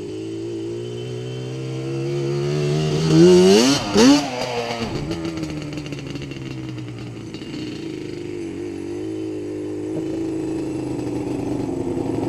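Quad (ATV) engine idling, revved up with a rising pitch about two seconds in to two sharp throttle blips at about three and four seconds, then dropping back to idle. Engine noise grows louder near the end as another quad approaches.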